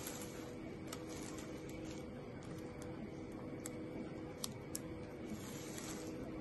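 Steady low electrical hum with a few soft, sharp clicks and rustles from gloved hands handling gauze and tape at a needle site. The clicks come about a second in and in a short cluster from three and a half to five seconds in.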